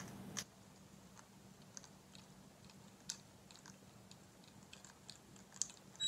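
Faint, scattered clicks and nibbling from an African grey parrot's beak working at a hanging plastic pumpkin toy and its twine, over a low steady hum.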